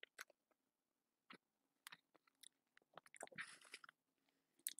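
Faint chewing of a large soft cookie, heard as scattered soft mouth clicks, with a short breathy noise about three and a half seconds in.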